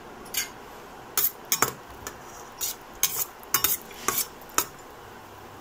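A metal utensil stirring cashews frying in ghee in a stainless steel pan, clinking and scraping against the pan about a dozen times at an uneven pace.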